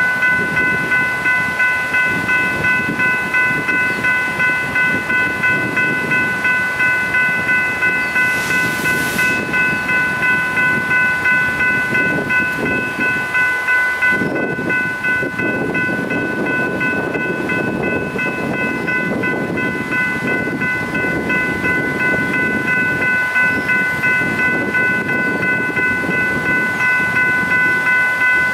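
Railroad grade-crossing bell ringing in fast, even, repeated strikes. Under it runs the low rumble of a passing train, which gets heavier about halfway through. There is a brief hiss about eight seconds in.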